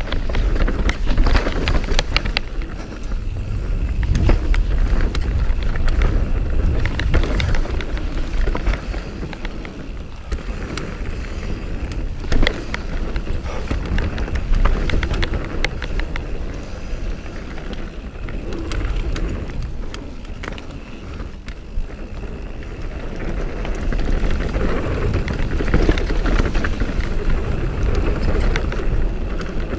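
Mountain bike descending a rooty, rocky dirt trail at speed: tyres rolling over dirt and roots, with many sharp clicks and rattles from the bike, over a steady low rumble.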